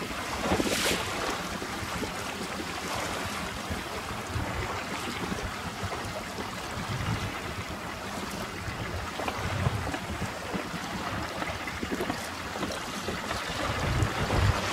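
Small boat's outboard motor running at trolling speed, mixed with wind gusting on the microphone and choppy water splashing.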